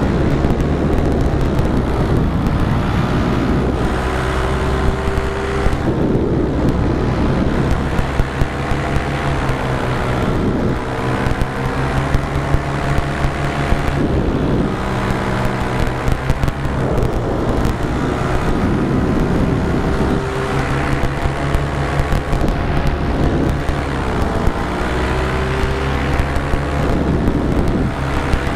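Small motor of a camera-carrying model vehicle running hard, its pitch rising and falling again and again as it speeds up and slows, with scattered short knocks.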